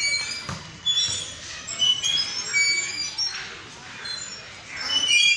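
Metal swing hangers squeaking in short, high squeals as a child swings standing on the seat, with children's voices now and then.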